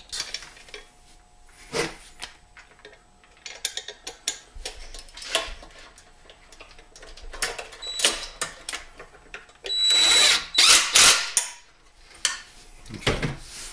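Clicks of a bolt and plastic key box being handled, then a cordless drill/driver runs in short bursts near the end, driving the bolt that holds the key box to the engine.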